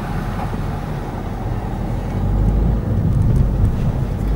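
Car driving along a road, heard from inside the cabin: a steady low engine and road rumble that grows louder from about halfway through.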